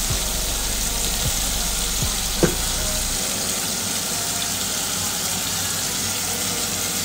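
Bone-in chicken thighs sizzling skin-side down in hot oil in a pot: a steady frying hiss, with one brief pop about two and a half seconds in.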